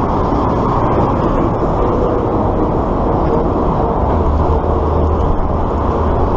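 Steady wind rush on the microphone of a camera riding on a moving bicycle, mixed with road traffic. A low hum grows stronger about four seconds in.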